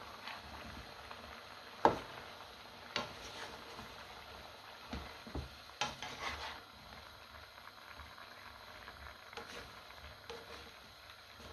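A plastic spatula stirring and turning sliced aubergine, peppers and onion in a nonstick wok, knocking and scraping against the pan several times, the loudest knock about two seconds in and most of them between two and seven seconds. Under it a faint steady sizzle of the vegetables cooking.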